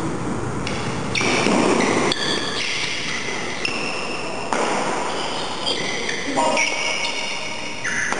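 Badminton shoes squeaking on the hall floor during a fast doubles rally, a string of short high squeals as the players lunge and change direction, with a few sharp racket hits on the shuttlecock.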